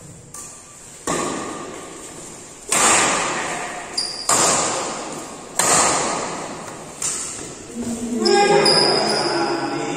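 Badminton rally: rackets strike the shuttlecock five times, about one and a half seconds apart, each hit echoing in the hall. High shoe squeaks sound on the court floor, and men's voices start near the end.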